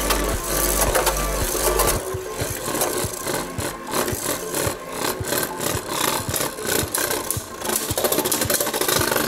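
Background music fades out about two seconds in, leaving two Beyblade Burst tops spinning on a plastic stadium floor: a rattling, scraping whir broken by irregular clicks as they knock together. It grows busier near the end.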